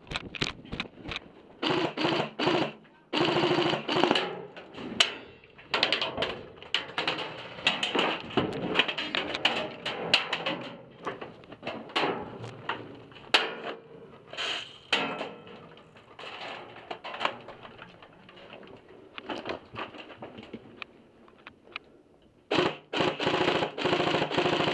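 Airsoft guns firing, in bursts of rapid full-auto clatter and scattered single snaps. The longest, densest burst comes near the end.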